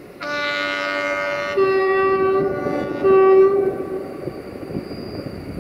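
Electroputere LDE2100 (060-DA) diesel-electric locomotive's air horn sounding: a lower note held for about a second and a half, a higher note straight after, then, after a short break, one more short blast on the higher note.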